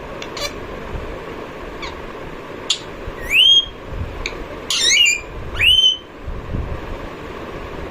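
Rose-ringed (green ringneck) parakeet calling: a few short sharp chirps, then about three loud squawks that rise in pitch, between about three and six seconds in.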